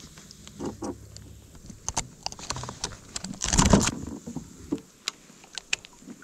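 Handling noises in a kayak: small clicks and knocks of fishing pliers, a fish-gripping tool and tackle as a northern snakehead is unhooked, with one louder rush of noise lasting about half a second, about three and a half seconds in.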